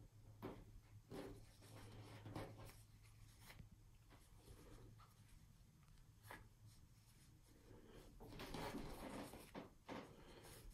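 Faint rustling and rubbing of fabric as a hand smooths applique strips onto a quilt, a little louder about eight seconds in, over a faint low hum; otherwise near silence.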